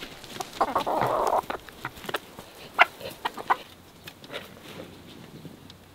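Domestic chickens clucking and squawking, with a loud harsh burst about a second in and a few short sharp clucks around three seconds in.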